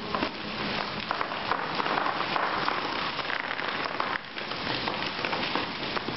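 Dense crackling of plastic bags being squeezed and handled, along with plastic crinkling on the floor as a dancer moves across it.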